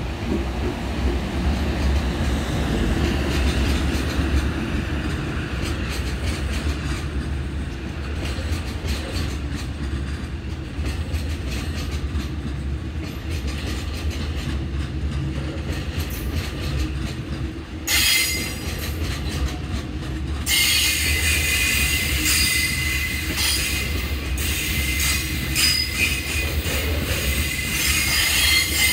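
Freight train of flat wagons loaded with long steel rails rolling past: a steady low rumble and clatter of wheels on the track. A short high-pitched wheel squeal comes about eighteen seconds in, then continuous squealing from about twenty seconds on.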